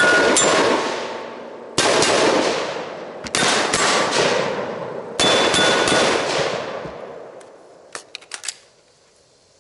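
AR-15 rifle fired at steel targets in four quick strings of shots about a second and a half apart, with steel plates ringing from hits. A few lighter sharp clicks follow near the end.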